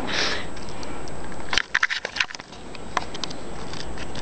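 Handling noise from a small handheld camera being turned around in the hand: rubbing and crackling over a steady low rumble, with a cluster of sharp clicks about a second and a half in and a few more near three seconds.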